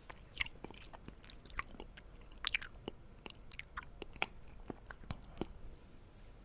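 A person chewing food close to the microphone: irregular mouth clicks and smacks, a few every second.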